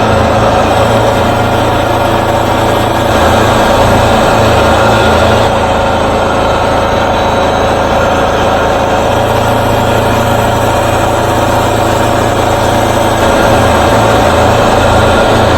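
Wood-Mizer LT40 Super Hydraulic sawmill's engine running steadily under load, with a slight change in tone about five seconds in.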